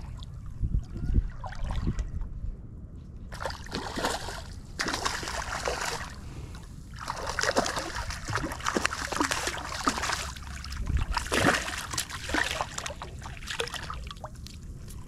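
Water splashing in several bursts as a hooked redfish thrashes at the surface while it is being landed.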